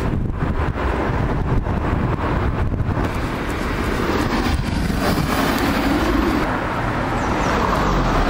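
Steady outdoor road traffic noise, with wind on the microphone adding a low rumble.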